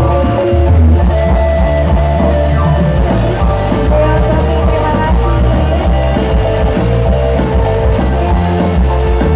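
Loud band music with heavy pulsing bass and a drum beat, played through a large stacked speaker rig being sound-checked.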